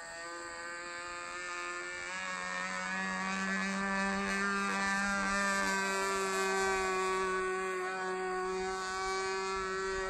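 Super Chipmunk RC model airplane's motor droning in flight, a buzzing, pitched hum. It grows louder about two seconds in, and its pitch shifts a little as the plane flies across.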